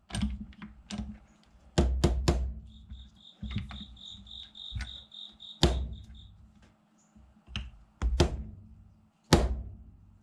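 Soft-faced mallet tapping a metal block down onto parallels in a milling vise, about a dozen sharp taps in uneven groups, to seat the work flat. A quick run of high beeps sounds from a few seconds in until about six seconds in, over a faint steady hum.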